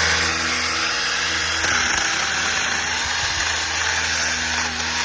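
SeeSii 6-inch battery-powered mini chainsaw running and cutting wood, switched on suddenly just before and holding steady, with a whine that wavers slightly under load.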